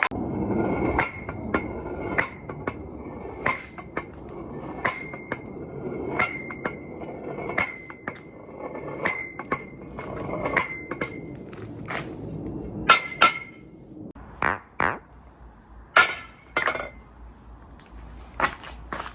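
Marbles rolling down a marble run track, a steady rolling rumble with regular clicks as they pass joints and pieces. From about twelve seconds in the rumble drops away, leaving scattered sharp clacks of marbles dropping and striking the course.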